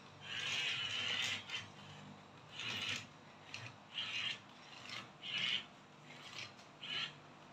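Huina RC toy excavator's electric track motors and gearboxes whirring with a rasp in five short bursts, with pauses between, as it is driven in stops and starts up a wooden plank ramp.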